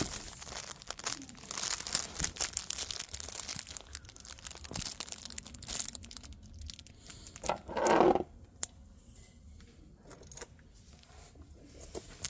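Rustling and crinkling of fabric rubbing against a hand-held phone's microphone, with a louder brief rustle about eight seconds in.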